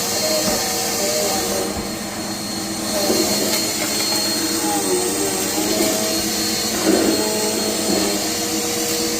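Vacuum cleaner running steadily with a constant high whine over its motor hum; its hiss drops briefly about two seconds in.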